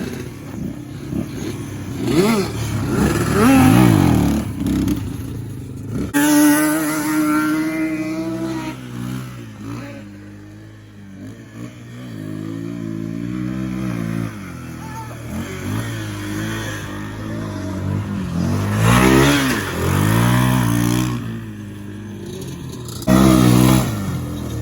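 Small off-road engines revving, their pitch rising and falling again and again as they are throttled up and backed off, with a short loud rev near the end.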